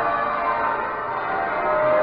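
A heavy ring of twelve church bells, tenor about 72 cwt, rung in changes: bells struck one after another, their tones overlapping and hanging on, with another bell coming in near the end.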